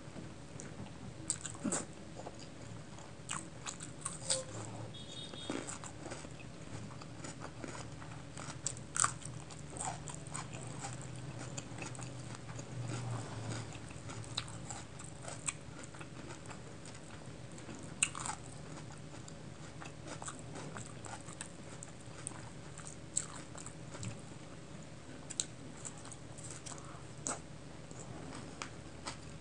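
Close-miked eating sounds of rice and chicken curry being eaten by hand: chewing, wet mouth clicks and fingers squelching through the food. Short, sharp clicks come at irregular moments over a faint steady low hum.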